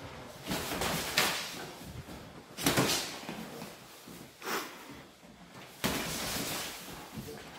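Boxing gloves landing during sparring: a few dull, sudden thuds at irregular intervals, the sharpest about a second in and near three seconds, with shuffling of feet on the ring canvas between them.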